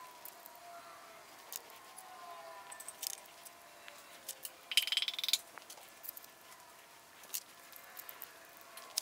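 Small metallic clicks and taps of hand tools working on the rocker arms of an LS3 V8 engine. About five seconds in there is a short rapid run of clicks, the loudest sound.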